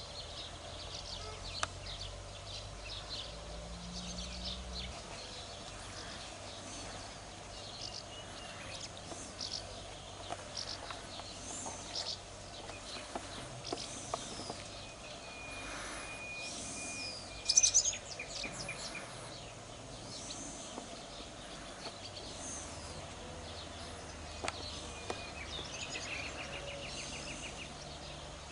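Wild birds singing and chirping, many short high calls scattered throughout, with a held whistle and the loudest burst of calls about two-thirds in and a rapid trill near the end. A low rumble sits under the first few seconds.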